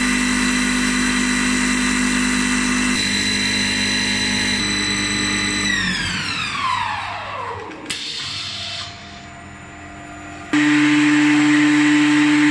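CNC wood lathe running, with a steady motor and spindle whine that falls in pitch as the drive winds down about six seconds in. About ten seconds in, a louder, lower steady hum starts suddenly.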